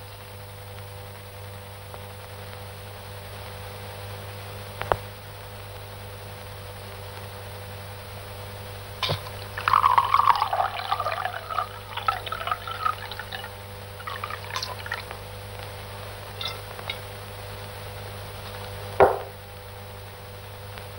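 Liquid pouring into a small glass bottle for a few seconds, with light glass taps and clicks before and after it and one sharp knock near the end, over a steady soundtrack hum.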